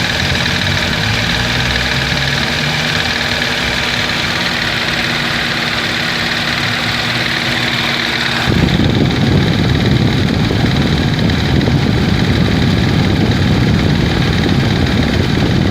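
Ford Escort/Orion engine idling steadily. The owner cannot find the source of a noise in it, though the engine starts and idles normally. About eight and a half seconds in, the sound abruptly turns louder and rougher, with a heavier low rumble.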